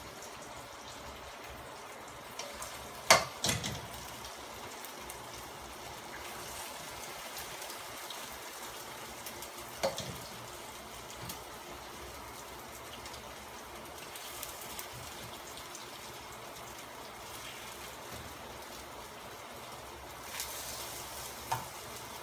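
Thin slices of beef frying in oil in a wok, a steady sizzle, with a sharp clack about three seconds in, a smaller one about ten seconds in, and a couple of light knocks near the end.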